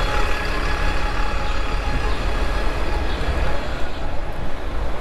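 Steady traffic noise heard from an electric motorbike creeping alongside a queue of cars and a double-decker bus, with the bus's engine running close by. A constant low rumble of wind on the microphone lies under it.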